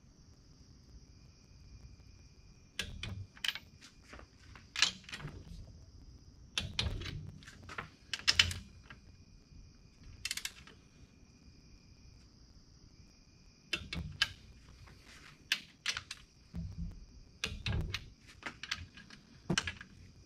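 Socket wrench ratcheting in short runs of quick metal clicks, separated by pauses, as the nuts on a VW Type 1 crankcase are tightened down in torque stages.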